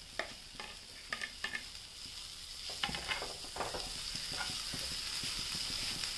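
Chopped onions and tomatoes sizzling in hot oil in a frying pan, the sizzle growing louder over the first few seconds, with a wooden spoon clicking and scraping against the pan as the mix is stirred.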